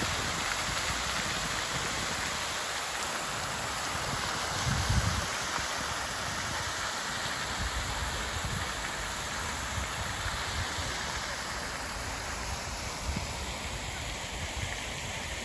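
Water from a large tiered stone fountain splashing down into its basin: a steady rushing hiss that thins a little near the end. A brief low thump comes about five seconds in.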